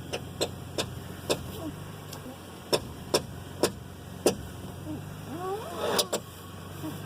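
Car engine running with a steady low hum, overlaid by sharp clicks at irregular intervals of about half a second to a second, with a short pair near the end. This is the weird noise coming from the front wheel area; its cause is not known.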